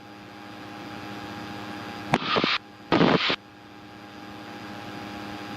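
Light aircraft's engine and cabin drone, a steady hum with a few constant tones that slowly grows louder. Two short loud bursts break in about two and three seconds in.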